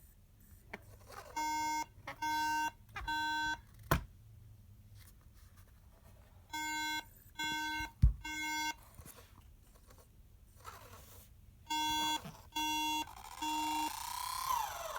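MacBook Air giving its startup beep code: three short electronic beeps in a row, repeated about every five seconds, the pattern Apple uses to signal a memory (RAM) fault when a Mac fails to boot. A sharp click a few seconds in and a louder thump about 8 s in break in between the beeps.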